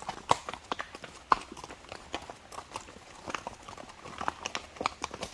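Horse hooves clopping on the trail at an uneven walking pace, with a couple of louder knocks in the first second and a half.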